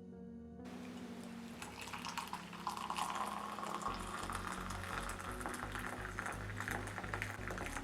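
Hot spiced palm-jaggery coffee making a steady splashing, bubbling liquid noise that starts about half a second in and grows brighter a few seconds later, over soft background music.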